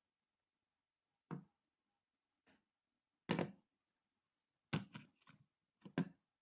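Handling knocks and clicks on a smartphone, a few separate ones with the loudest about three seconds in and a quick pair near the end, over a faint steady high-pitched whine.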